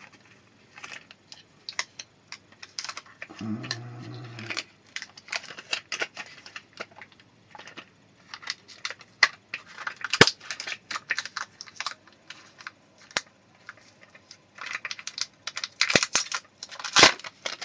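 Hands rummaging among small hard objects: rapid, irregular clicking and clattering. There is a brief low rumble about three and a half seconds in, and the clatter grows denser and louder near the end.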